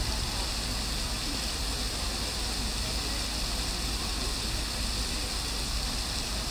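The Triton Fountain's tall central jet and ring of arcing jets splashing into the basin: a steady rushing hiss of falling water.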